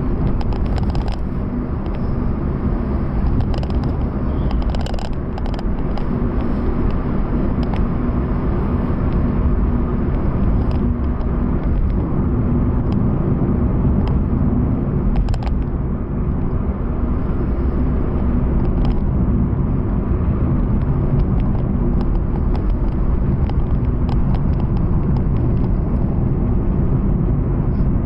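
Steady engine and road noise inside the cabin of a Proton Saga 2019 under way, its 1.3-litre four-cylinder running at cruising speed over the hum of the tyres.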